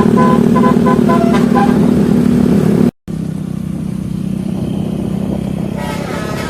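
A bus's telolet musical horn plays a quick run of short notes at several pitches over a loud, running engine. About three seconds in the sound cuts off abruptly, then resumes as a steady engine drone with fewer horn notes.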